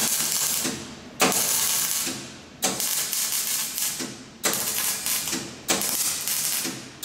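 Electric arc welding on a steel-tube bumper in short bursts: about five crackling hisses that each start suddenly, last about a second and trail off, one every second and a half or so.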